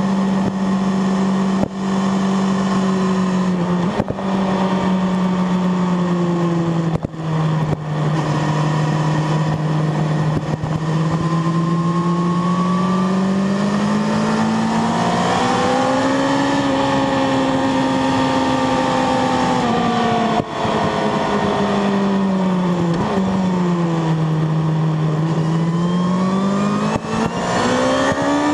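Sport motorcycle's engine heard from on board at a track pace, with a steady hiss of wind rush. Its pitch steps with a brief break in the sound a few times in the first several seconds, as at gear changes. It then climbs as the bike accelerates, falls as it slows for a turn, and rises again near the end.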